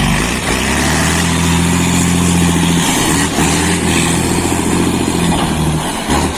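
Volkswagen Constellation truck's diesel engine rumbling loudly through a new, wider 4.5-inch exhaust, held at a steady speed with a brief dip in pitch near the end.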